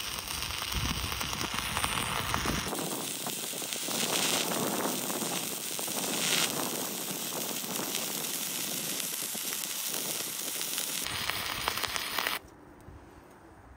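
Stick (arc) welding: the arc between a hand-held electrode rod and the workpiece crackles steadily as a bead is run, then cuts off about a second and a half before the end.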